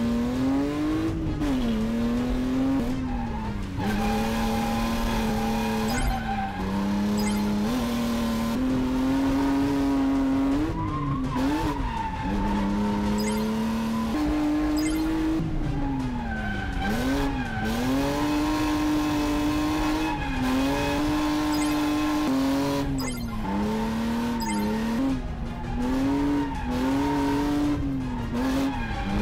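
BMW E36 drift car's engine held at high revs, its pitch swinging up and down with repeated sharp dips as the car is drifted, with tyre squeal.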